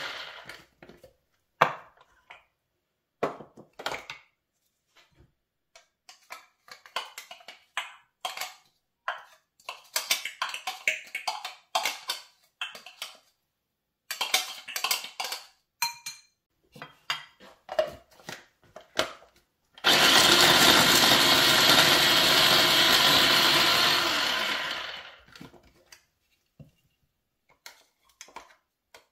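Electric mini food chopper running in one loud burst of about five seconds to mince onion, winding down near the end. Before that come plastic clicks of the bowl and lid being handled, and a spoon scraping chopped vegetables off the blade and lid.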